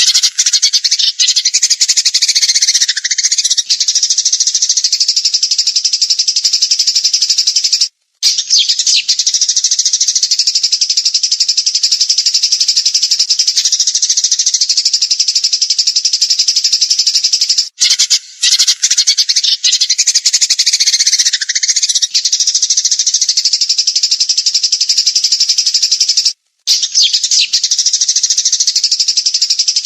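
Recorded songbird song of the kind used to train caged birds: a high, dense, unbroken trill, with a falling whistle near the start and again about two-thirds of the way through. The recording loops, with brief breaks about every nine seconds.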